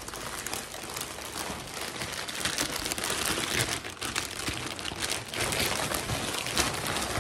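Large clear plastic bag crinkling as it is handled and pulled open: a dense, uneven crackle.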